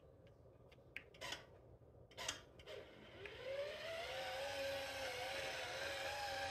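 A few light clicks, then about three seconds in a small rechargeable tubular roller-shade motor inside an IKEA roller shade's tube starts up. Its quiet whine rises briefly in pitch, then holds steady and smooth as it rolls the shade.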